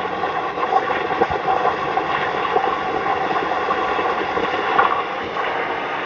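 Handheld propane torch flame running with a steady hiss, heating the hood's sheet metal before it is worked.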